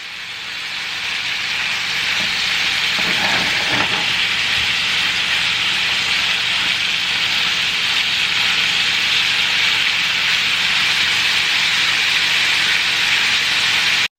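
Food sizzling steadily in a hot frying pan. It fades in over the first couple of seconds and cuts off suddenly at the end.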